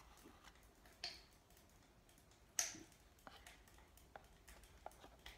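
Faint wooden clicks and knocks from a small pine box being handled and its lid lifted off, two of them clearer, about a second in and about halfway through, in an otherwise near-silent room.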